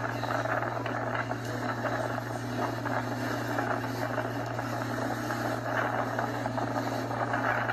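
Inflatable motorboat running at speed over water: a steady engine drone mixed with wind and rushing water, heard played back through a computer's speakers.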